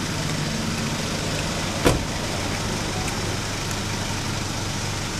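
Steady street traffic noise with a low engine hum, and a single sharp click about two seconds in.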